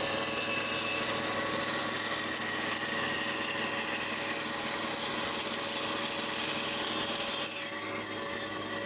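Large band saw running and cutting through a piece of timber, a steady whir with the hiss of the blade in the wood.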